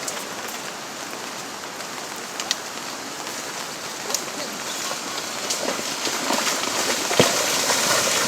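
Heavy rain falling steadily, with a few sharp clicks and knocks; the rushing noise grows louder toward the end.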